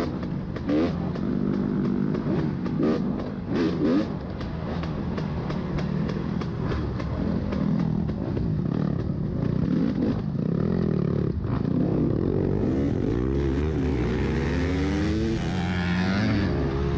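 Two-stroke dirt bike engine revving and chugging as the throttle is worked over rough ground, with a few clattering knocks in the first few seconds. Near the end another dirt bike zips past.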